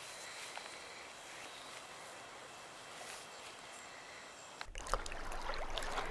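Faint steady outdoor hiss, then about four and a half seconds in a small stream starts up suddenly and runs over rocks with a low rumble and irregular splashes.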